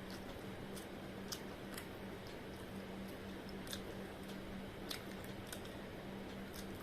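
Someone chewing fried vegetable momos: a few sharp, crisp clicks of bites and mouth sounds scattered irregularly over a steady low hum.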